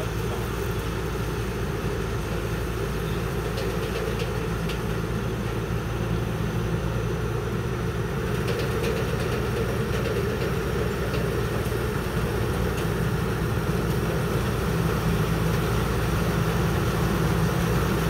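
Rice combine harvester's diesel engine and threshing machinery running steadily under load while it cuts rice, growing gradually louder as the machine comes closer.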